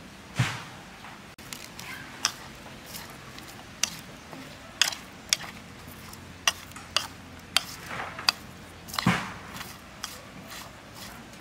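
A utensil clinking and scraping against a bowl while seasoning is mixed into freshly sliced pickled vegetables, with irregular sharp taps about every half second to a second and a half.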